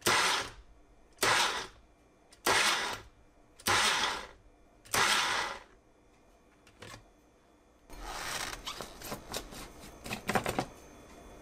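Ninja Fit 700-watt personal blender pulsing salsa: five short bursts of the motor and blade, about one a second, each stopping as the push-down cup is let up. From about eight seconds in, knocks and scraping as the chopped salsa is tipped out of the blender cup into a glass bowl.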